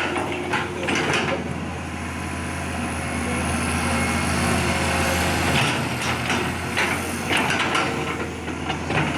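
Excavator's diesel engine running steadily, with several clanks and knocks from the working gear near the start and again in the second half. The engine note drops a little just past halfway.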